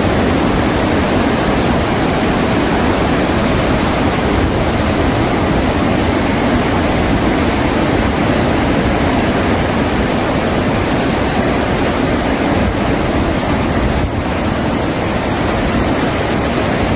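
Iguazu Falls pouring into its gorge: a loud, steady, unbroken rush of falling water.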